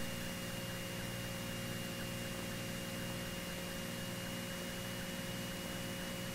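Steady electrical hum and hiss on the aircraft's intercom audio feed between transmissions, with a thin high tone running through it.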